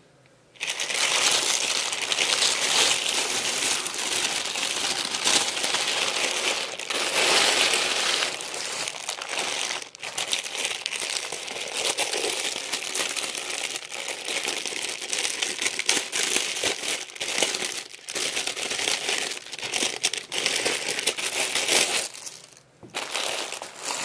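Thin plastic packaging crinkling and crackling under hands: a plastic mailer bag being opened and a tote bag handled in its clear plastic sleeve. The crinkling starts about half a second in and goes on with short dips, then stops briefly near the end before a last short burst.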